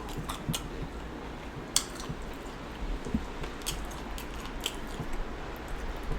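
Close-up wet chewing and mouth smacks from eating a saucy deshelled seafood boil, with scattered sharp clicks and no speech.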